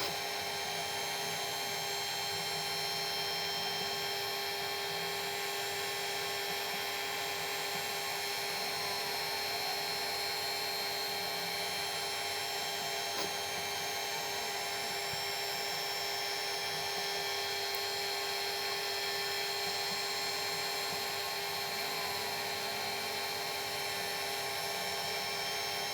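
Milling machine running at a steady speed, its cutter working a small part.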